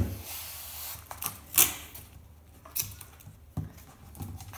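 Masking tape being pulled off the roll with a rasping hiss about the first second, then a few sharp taps and clicks as the tape and canvas are handled.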